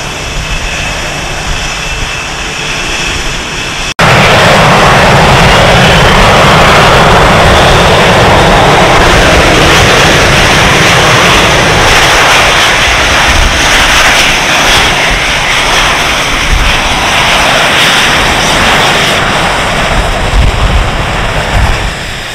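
Twin jet engines of a CF-18 Hornet fighter at taxi power: a steady whine at first, then, about four seconds in, a sudden jump to a much louder rushing jet noise that eases off near the end.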